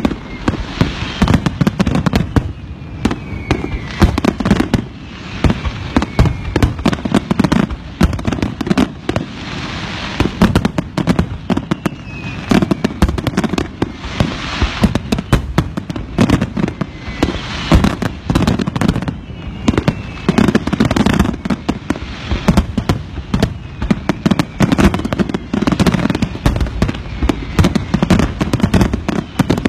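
Fireworks going off in a dense, continuous barrage of sharp bangs and crackles. Short falling whistles sound now and then among the bangs.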